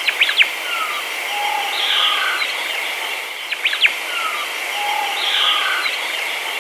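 Birds chirping and whistling over a steady hiss. The same short run of calls is heard twice, so it is a looped outdoor ambience recording.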